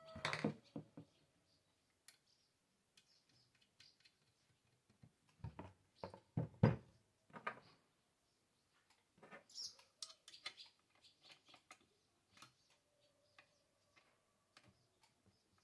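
Scattered small metal clicks and knocks as a chainsaw's bucking spike and its screws are handled and fitted against the saw body. They come in bursts: at the start, a few seconds in, and again around the middle, then only faint ticks.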